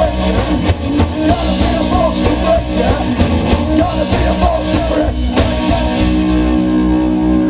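Live punk rock band playing electric guitar, drum kit and upright double bass, with a man singing. About five seconds in, the drumming stops and a held chord rings on, as the song ends.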